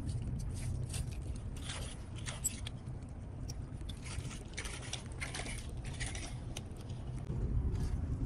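Clam digging in shallow water over a shell-strewn bottom: scattered scrapes, crunches and clicks of shells being dug and handled, over a steady low rumble.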